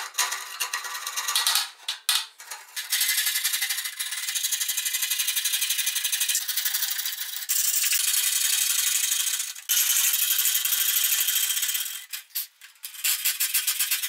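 Coping saw rasping through primed MDF base trim in quick, even strokes as it cuts a cope along the molding's profile, in long runs broken by a few short pauses and choppier near the end.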